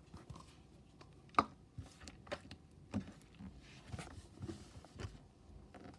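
Metallic orange Play-Doh slime being stretched and squeezed by hand, giving small air-bubble pops. The sharpest pop comes about a second and a half in, with softer pops and squishes after.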